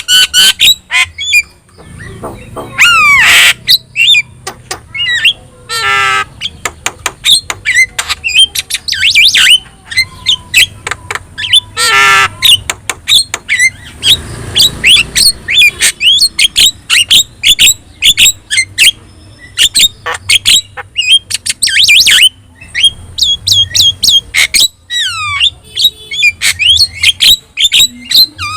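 Javan myna (jalak kebo) singing a rapid, varied song of sharp whistled notes and chatter, broken by several longer, harsh rasping squawks.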